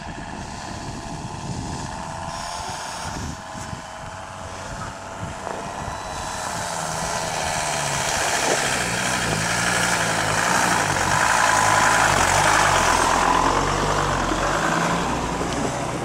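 Mercedes T1 4x4 van's engine pulling up a snowy track, growing louder as it approaches, its note rising and falling under load, loudest a few seconds before the end. A steady high whine sits over it in the first few seconds.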